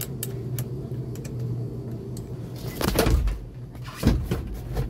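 Battery cable being reconnected: light metal clicks, then two heavy metallic clunks about three and four seconds in, over a steady low hum.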